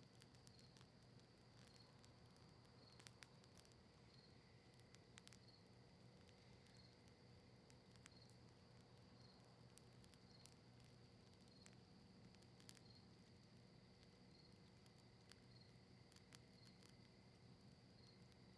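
Campfire of cedar leaves and maple wood crackling faintly: scattered, irregular sharp pops, with a few louder ones. Underneath runs a steady high-pitched tone pulsing about once a second, and a low hum.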